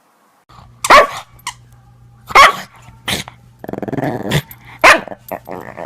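A dog barking about four times, sharp and loud, with a stretch of growling between the barks.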